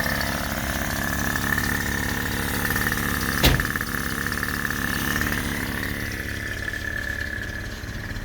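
Datsun L20B four-cylinder engine idling on a new Weber 32/36 carburettor while it warms up from cold, with a steady high whine alongside. A single sharp knock comes about three and a half seconds in.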